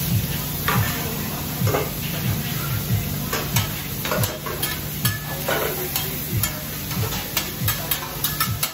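Chicken and vegetables sizzling on a hot flat-top hibachi griddle while metal spatulas scrape and clink against the steel surface, the clinks coming quicker in the second half.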